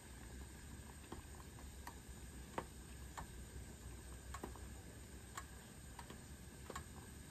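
A utensil knocking and scraping against a stainless steel pot while stirring noodles: faint irregular clicks, roughly one a second, the sharpest about two and a half seconds in, over a faint low rumble.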